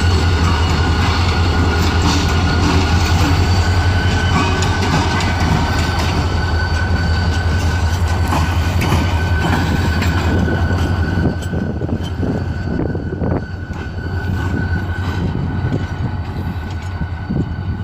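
A shunting train moving slowly over track and switches: the wheels clatter irregularly over rail joints and points, with a thin steady squeal and the steady low drone of the diesel locomotive. The drone fades about eleven seconds in, leaving mostly the wheel clatter.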